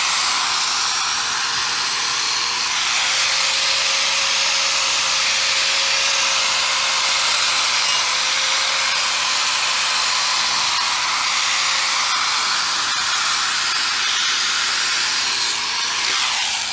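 Angle grinder with a masonry blade cutting a groove into cement-stabilized compressed earth block: a loud, steady grinding with a high whine. Near the end the whine falls as the blade lifts off the block and the grinder winds down.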